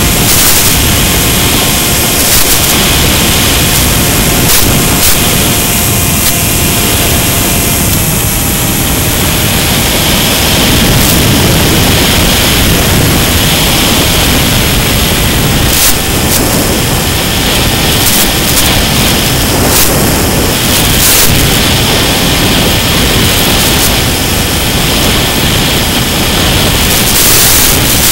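Loud steady hiss of static from a Mini Sky Walker FPV plane's analog video link, with scattered crackles and a louder surge of noise near the end as the signal breaks up.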